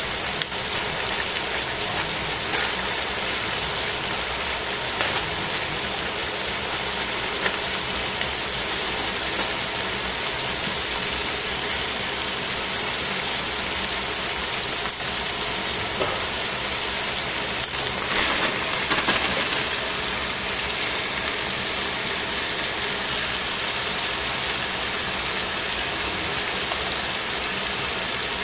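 Chicken pieces sizzling in oil in a stainless steel frying pan, a steady crackling sizzle with a louder flurry of popping about eighteen seconds in.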